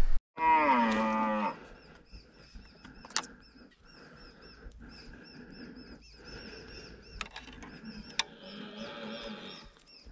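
Red deer stag roaring once during the rut: a loud, drawn-out call that falls in pitch, lasting about a second, starting about half a second in.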